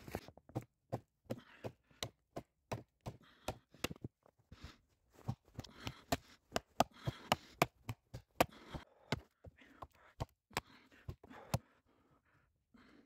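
Hatchet chopping a thin branch into short sticks: a run of light, sharp knocks, about two or three a second, that stops shortly before the end.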